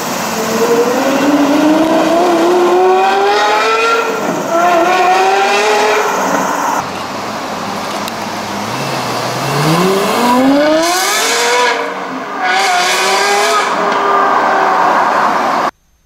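Lexus LFA's 4.8-litre 1LR-GUE V10 revving hard as the car accelerates away, its note climbing steeply with short drops at each upshift. Two separate pulls: the second starts from a low note about nine seconds in and rises fast to a high wail. The sound cuts off abruptly near the end.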